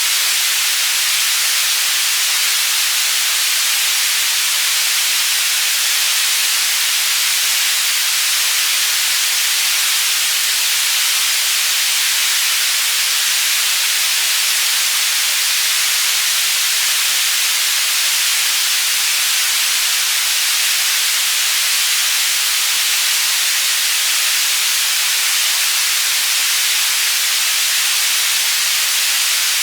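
Synthetic white noise used as a tinnitus masking sound: a steady, even hiss, strongest in the upper frequencies, panned from side to side.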